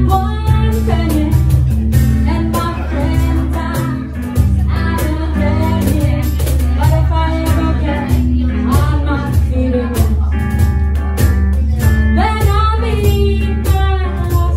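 Live blues band playing: strummed acoustic guitar and a cajón keeping a steady beat under a woman's singing voice.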